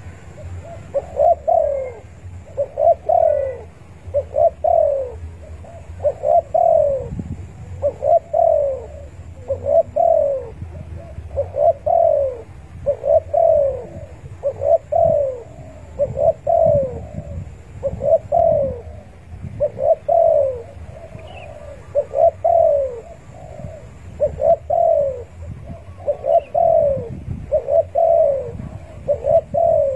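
Spotted dove (tekukur) cooing over and over, each coo a short falling note, repeating about every second and a half. This is the call of a male calling out to rival doves.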